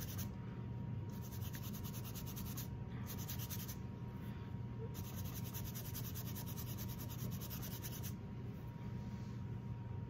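Bristle brush scrubbing faintly on a textured canvas in several spells, the longest about three seconds, wiping out wet raw umber with paint thinner to lift out the light areas. A steady low hum runs under it.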